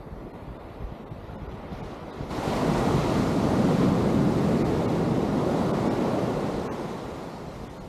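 Ocean surf: a wave breaks suddenly about two seconds in, and its wash stays loud for a few seconds before fading away, over a low rumble of wind on the microphone.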